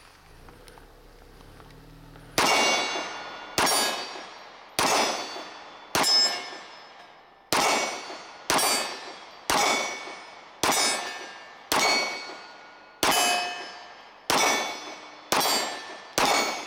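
Mossberg MC2c 9mm pistol fired about thirteen times at a steady pace of roughly one shot a second, starting a couple of seconds in. Each shot is followed by the ringing clang of a steel target being hit.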